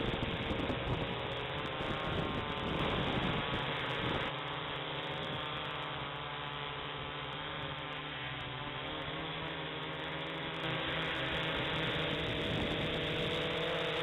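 Ideafly I-Fly4 quadcopter's electric motors and propellers whirring, picked up by its on-board camera. The whine wavers in pitch as the throttle changes, and steps down in loudness about four seconds in and back up near eleven seconds.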